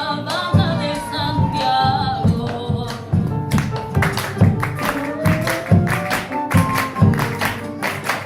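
Latin-style song with singing, which gives way about three and a half seconds in to a run of sharp, rhythmic taps or stamps over the music, several to the second.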